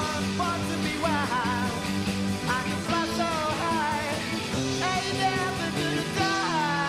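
Rock band playing a cover song on an amateur demo tape transferred from cassette: drums, bass and electric guitar, with a lead line that bends and wavers in pitch over a steady bass part.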